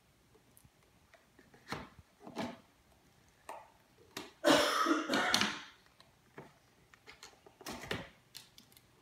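Cardboard toy box and its plastic packaging being handled, cut and pulled open: scattered clicks and rustles, with a louder rustling burst about a second long near the middle.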